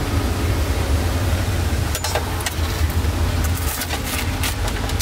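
Road traffic: a steady low engine rumble from passing vehicles, with scattered clicks and clatter from about two seconds in.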